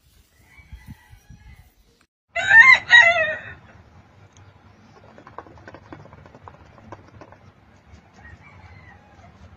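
Cochin bantam rooster crowing once: a short, loud crow of about a second and a half with two swells, starting about two and a half seconds in. Faint clucks come after it.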